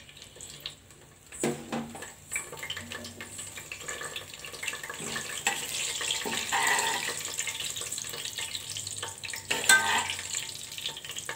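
Whole spices sizzling and crackling in hot oil and ghee in a stainless steel pressure cooker, the sizzle building after about two seconds. A steel spoon scrapes and clinks against the pot now and then as the spices are stirred.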